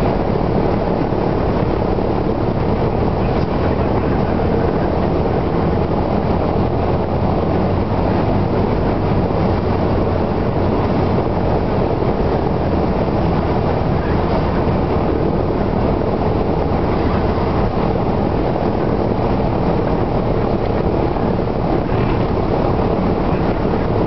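Cessna 172's piston engine and propeller running at a steady drone, with no change in power.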